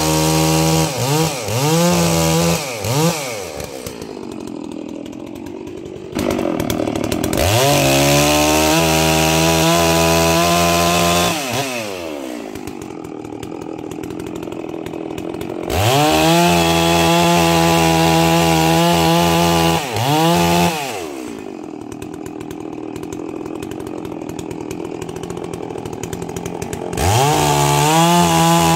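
Holzfforma G660 chainsaw being broken in, bucking thin logs: four spells of full throttle, the engine pitch dipping and recovering as the chain bites. Between cuts the engine falls back to a quieter idle for several seconds.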